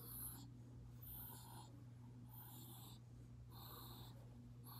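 Faint hard breathing, about four breaths spaced roughly a second apart, over a steady low hum.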